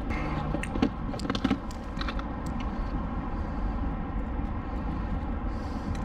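A few light clicks and knocks in the first couple of seconds, handling noise in a kayak as a freshly landed bass is dealt with, over a steady low rumble.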